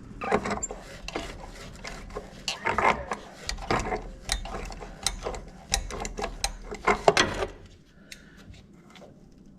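Ratchet wrench clicking in short irregular runs, with metal clanks, as a rusted truck cab mount bolt is worked loose. The clicking stops about three quarters of the way through.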